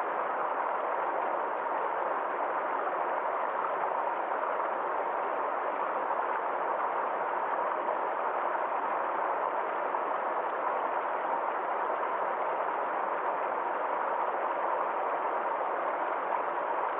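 Forest stream flowing: a steady, unbroken rush of running water.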